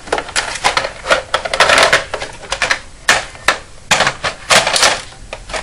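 Plastic clicks and rattles as an attachment is fitted onto a Nerf Long Shot blaster, with a run of irregular sharp knocks as the parts snap together.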